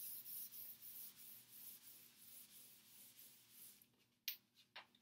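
Chalkboard eraser rubbed back and forth across a blackboard, a soft scratchy hiss that fades out after about four seconds. Two short taps follow near the end.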